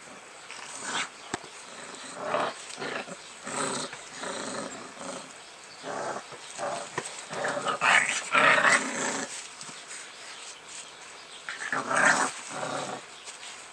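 American bulldog puppies play-fighting and growling in short bursts, loudest about eight to nine seconds in and again about twelve seconds in.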